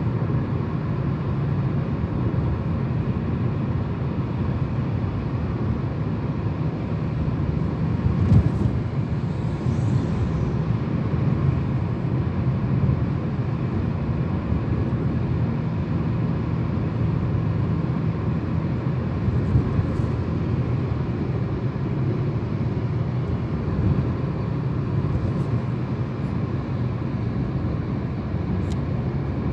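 Steady low rumble of engine and tyre noise heard inside a moving car at highway speed, with a few brief knocks, the loudest about eight seconds in.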